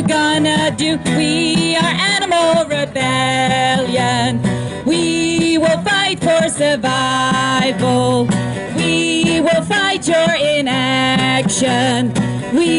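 A woman singing through a microphone and small amplifier, with long held notes that waver in pitch, accompanied by a strummed acoustic guitar.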